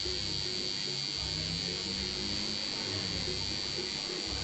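Electric tattoo machine buzzing steadily as it works on skin: a constant high whine over a fast buzz, without a break.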